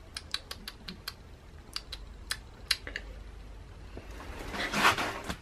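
Rabbit gnawing and crunching on a chew: a run of crisp, irregular clicks over the first three seconds. Near the end comes a brief rustle of the camera being handled and moved.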